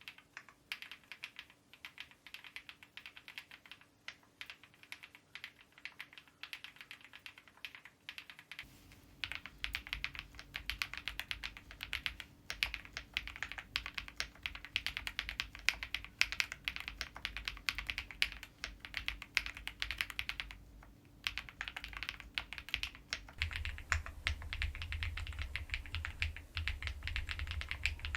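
Continuous typing on an Epomaker EK75 mechanical keyboard, with dense key clicks. It is lighter at first, becomes heavier and louder about a third of the way in, and pauses briefly near the end before resuming.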